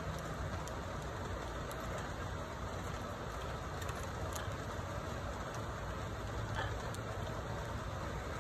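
Steady low rumbling background noise with a faint hum, broken by a few faint scattered clicks.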